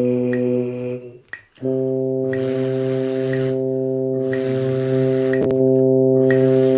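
Brass mouthpiece buzzing on a sustained low note, with a metronome clicking about once a second. The note breaks off about a second in and returns held steady.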